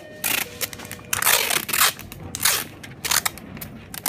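Bubble-wrap packaging crinkling and rustling in a string of short bursts as a parcel is wrapped by hand.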